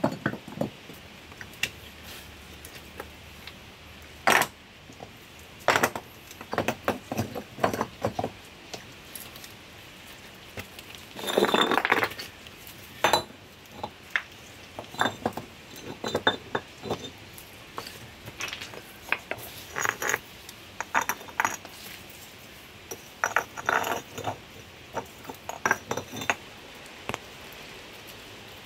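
Stones knocking and clacking against one another as flat rocks are set and shifted by hand into a stacked-stone wall: scattered sharp knocks, with a longer grinding scrape of stone on stone around the middle.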